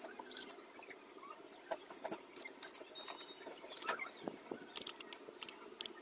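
Faint, scattered light taps, clicks and a few short squeaks of painting tools being handled, as a brush is swapped and loaded with paint.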